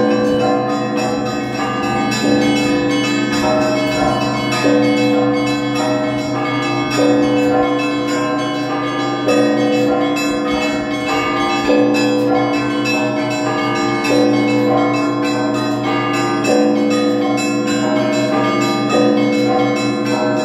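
Russian Orthodox church bells rung by a single bell ringer in a festive peal: a dense, rapid pattern of small bells over steadily ringing middle bells, with a louder, deeper stroke about every two and a half seconds.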